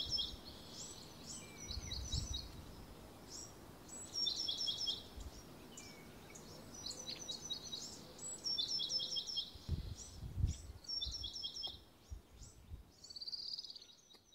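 A small songbird singing the same short phrase of quick, high notes over and over, about every one to two seconds. Now and then low gusts of wind rumble on the microphone.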